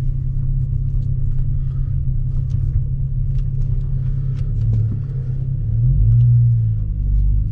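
Car engine and road rumble heard from inside the cabin, with the engine note rising and getting louder about six seconds in.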